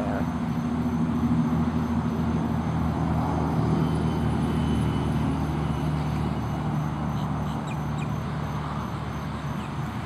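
An engine running steadily, a low drone that holds the same pitch throughout.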